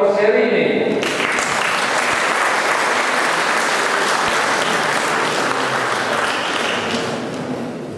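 Audience applauding, beginning about a second in and dying away near the end.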